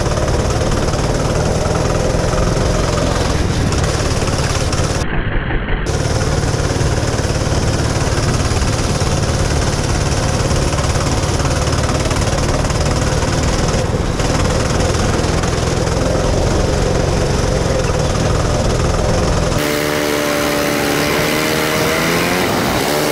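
Go-kart engine running at racing speed, recorded from the driver's helmet, over a steady low rumble. A little before the end the rumble drops away and the engine note rises and falls.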